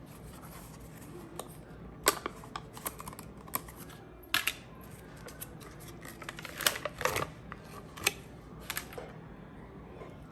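Irregular clicks, taps and light scrapes, with about fifteen sharp strokes in uneven bursts, from cream cheese tubs being opened and emptied with a spoon into a bowl.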